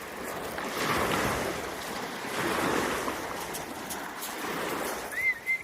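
Ocean surf washing ashore, swelling and ebbing in two waves, with a short high whistle-like tone near the end.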